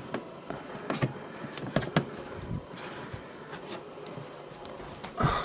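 Handling noise from paper towel being wiped and dabbed in a dishwasher's plastic base tray to soak up leaked water, with a few sharp knocks and a louder thump near the end.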